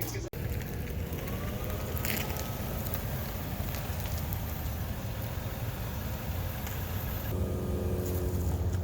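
Steady road and tyre noise from a car being driven, with a low rumble and a crackly hiss. The sound changes abruptly about seven seconds in.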